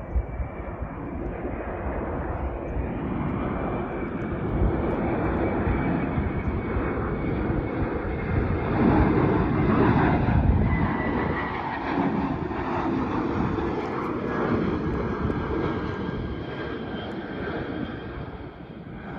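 Jet airliner's engines passing, building to a peak about halfway through and then fading, with a high whine over the rumble.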